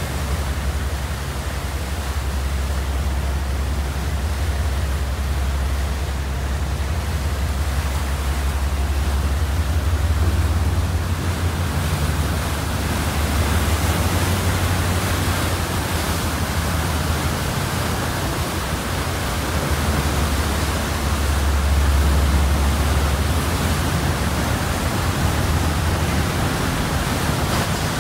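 Propeller wash churning behind a car ferry pulling away from its slip: a steady rush of water over a constant low rumble, swelling a little now and then.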